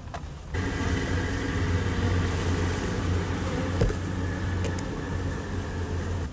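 A swarm of honey bees buzzing close by as they crowd into a hive box, over a steady low hum. It starts suddenly about half a second in and cuts off at the end.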